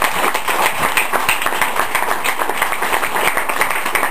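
Audience clapping and applauding, dense and steady.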